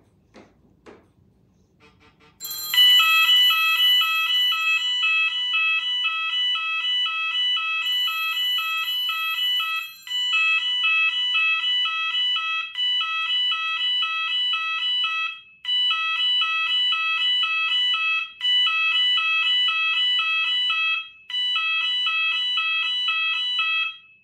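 Sound alarm of a DIY cell phone ring extender going off for an incoming call: a loud, rapid two-tone electronic warble. It starts about two and a half seconds in, cuts out briefly a few times, and stops near the end.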